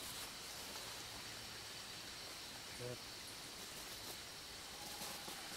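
Quiet forest ambience: a steady high insect drone over faint hiss, with one brief low sound about three seconds in.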